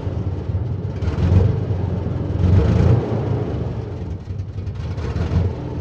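Cartoon sound effect of concrete mixer truck engines running: a low rumble that swells louder twice.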